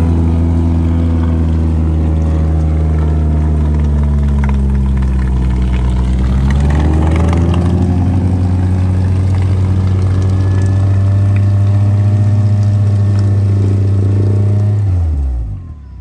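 Chevrolet Niva's engine running hard at high, steady revs as the SUV crawls through deep mud ruts; the note dips and climbs again about halfway through, then the revs fall away sharply near the end.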